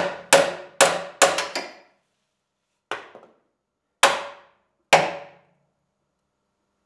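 Hammer blows on the steel front inner wing of a Lada Kalina while a chain puller holds it under tension, tapping out the damaged panel as it is pulled straight. Each blow rings metallically. There is a quick run of about six in the first second and a half, then three more about a second apart.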